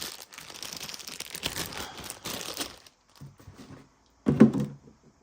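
Plastic packaging crinkling as it is handled for about three seconds, then a few short knocks, the loudest about four and a half seconds in.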